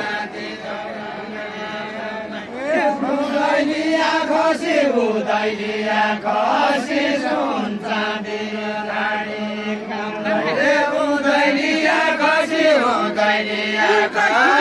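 Deuda folk singing: a voice sings long, drawn-out phrases that bend in pitch, over a steady low tone, growing louder about two and a half seconds in.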